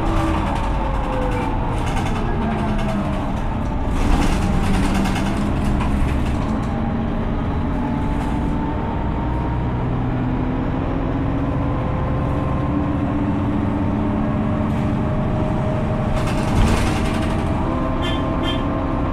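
Mercedes-Benz O530 Citaro city bus with a ZF Ecomat automatic gearbox under way. Its engine and drivetrain whine falls in pitch in the first few seconds, then climbs slowly as it gathers speed. A burst of air hiss comes about four seconds in, and a short thump comes near the end.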